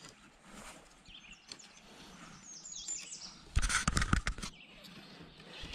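Fly rod sections knocking and rattling as they are slid into a rod tube, a burst of clatter lasting about a second past the middle. Just before it, a bird calls with a few quick, high, falling chirps.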